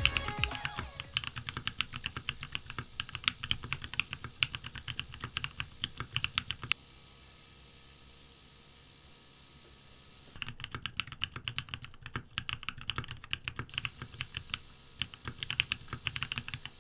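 Typing on a Savage65 mechanical keyboard with Holy Panda tactile switches: quick runs of keystroke clacks, broken by a pause of a few seconds in the middle.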